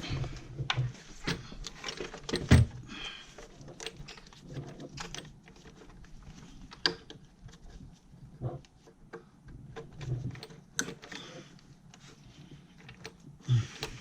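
Hands working in an engine bay: scattered clicks, knocks and light rattles of plastic wiring connectors and parts being handled and plugged in, with a sharper knock about two and a half seconds in.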